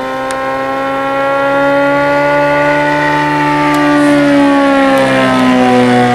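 Saito FG57 four-stroke gasoline engine of a large RC model plane running at high power with a smooth, steady note; the pitch climbs gently, then drops over about the last two seconds.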